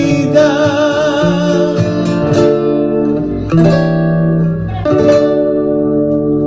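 Closing bars of a bolero: a man's voice holds a last sung note with vibrato over acoustic guitar for about two seconds. The guitar then plays the final chords alone, one struck about three and a half seconds in and another about five seconds in, each left ringing.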